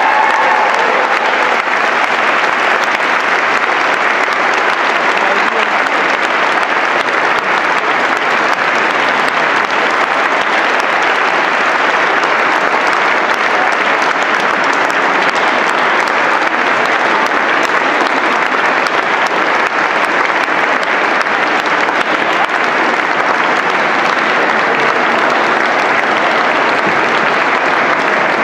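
Large concert audience applauding, a dense, even clapping that holds steady throughout.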